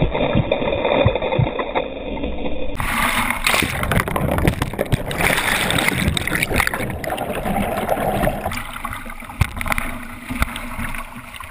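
River water gurgling and splashing around a kayak, muffled for the first few seconds and then suddenly clear, with many small knocks and splashes throughout.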